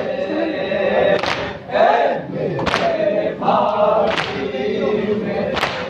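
A group of men chanting a Muharram lament together, with four loud unison slaps of hands on chests (matam) about one and a half seconds apart.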